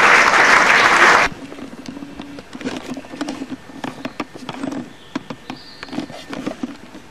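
Applause that cuts off abruptly about a second in, followed by fainter irregular knocks and clatter over a low hum.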